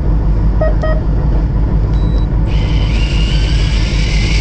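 Fishing boat's engine running with a steady low rumble. There are two short beeps about a second in, and from about halfway a steady whine joins, rising slowly in pitch.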